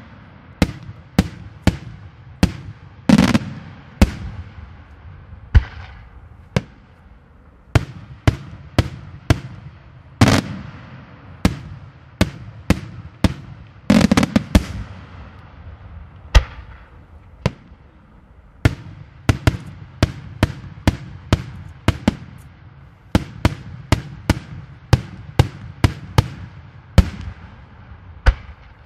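Daytime aerial fireworks bursting overhead in an irregular string of sharp bangs, about one or two a second. A few louder blasts trail off in a long echo, and the firing thins out briefly just after the middle.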